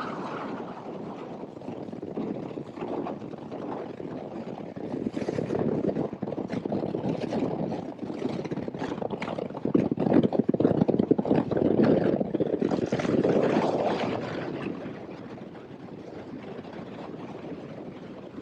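Bass boat with a Mercury 300R outboard running fast: a steady rush of wind and water with gusty buffeting, loudest in the middle and easing for the last few seconds.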